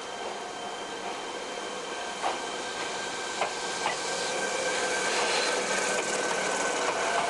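Fukuoka City Subway 1000-series train, a former chopper-control car refitted with VVVF inverter control, pulling away: the inverter and traction motors give a steady electric whine that grows louder, with a few wheel clacks over rail joints about two to four seconds in.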